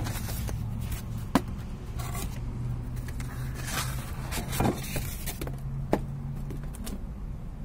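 Flat cardboard sheets being handled and slid over paving tiles: scraping and rustling with a few sharp knocks, over a steady low hum.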